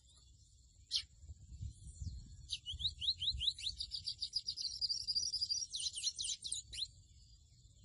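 Pico de plata azul seedeater (mochuelo) singing. A single sharp note comes about a second in, then a rapid run of rising whistled notes that closes up into a fast trill and ends with a few louder sweeping notes. A faint steady high hiss runs underneath.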